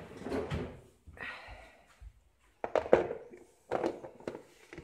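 Rustling, then four irregular sharp knocks and thuds from someone moving about and handling things in a small room.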